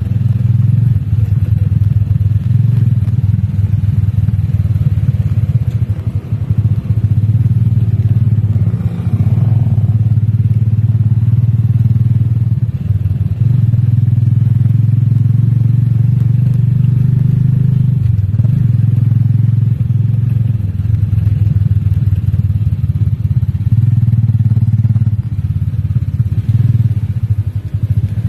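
Engine of the vehicle being ridden in, a steady low drone heard from inside the cab, dipping briefly a few times.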